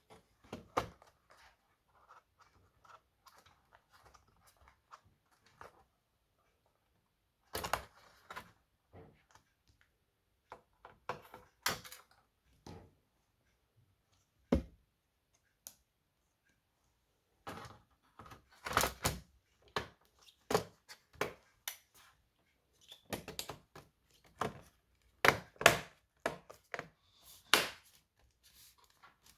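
Irregular clicks, taps and knocks from handling an HP EliteBook 850 G5 laptop and its parts during an M.2 SSD installation. They are sparse at first and come thicker and louder in the second half.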